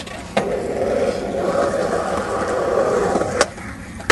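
Skateboard wheels rolling steadily over a concrete skatepark, with a sharp clack shortly after the start. About three and a half seconds in, the tail pops for an ollie and the rolling stops while the board is in the air; a loud landing hit comes at the very end.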